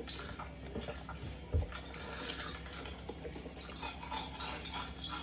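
Close-up eating sounds: chewing a sushi roll topped with crispy tempura crumbs, with small wet clicks and fingers picking a piece off a plate, and one soft bump about a second and a half in.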